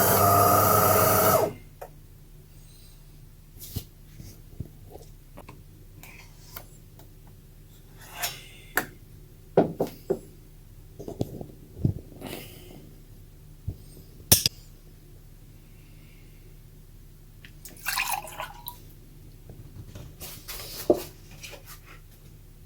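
A loud sound made of several steady tones cuts off suddenly about a second and a half in. After that come scattered light clicks and taps over a faint low hum.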